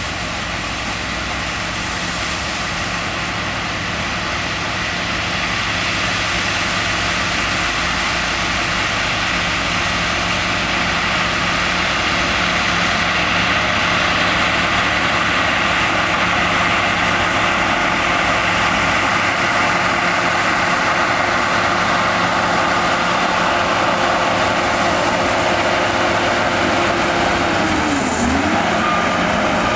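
Heavy diesel earthmoving machinery running steadily, growing gradually louder, with a brief dip and recovery in engine pitch near the end.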